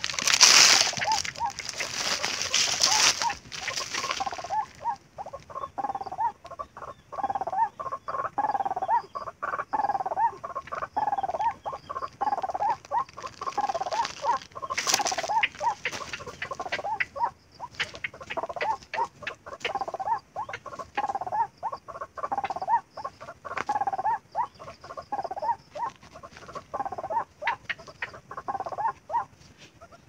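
White-breasted waterhen (ruak-ruak) call, a short croaking note repeated over and over about once a second. Footsteps crunch through dry leaf litter for the first few seconds, with scattered rustles and clicks after that.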